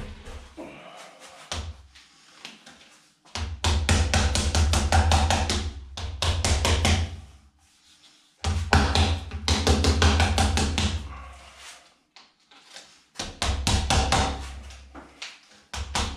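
Rubber mallet tapping a plastic wheel-rim edge protector ring down onto an alloy rim. The taps come in three runs of quick blows, each a few seconds long, with short pauses between.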